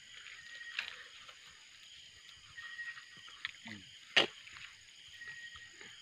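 Steady high chorus of night insects, with a few sharp clicks, the loudest about four seconds in.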